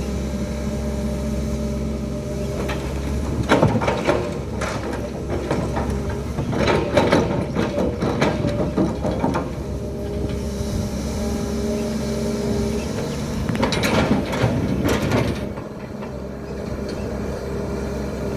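Hydraulic excavator's diesel engine running steadily, with three stretches of clattering and scraping from the bucket working material.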